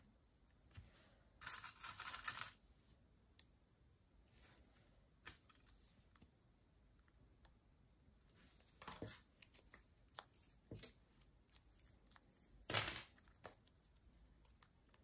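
Paper pieces rustle briefly as they are handled, about two seconds in. Later come a few sharp clicks as small metal binder clips are clamped onto the glued paper stack and it is set down; the loudest click comes near the end.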